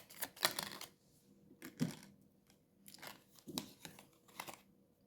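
Tarot cards being handled and drawn: a handful of brief papery rustles and flicks at irregular intervals.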